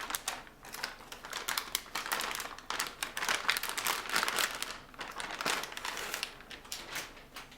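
Anti-static plastic bag crinkling and rustling as it is handled, an irregular run of crackles.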